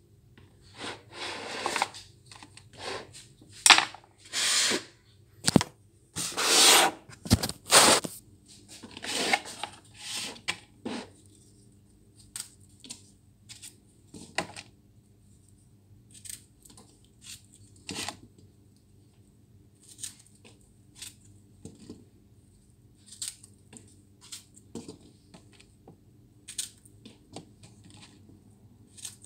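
Food-prep handling at a counter: a run of short rustles, clicks and scrapes from a plastic strawberry container and a small paring knife as strawberries are hulled. The sounds are loudest and densest in the first ten seconds or so, then become sparse clicks.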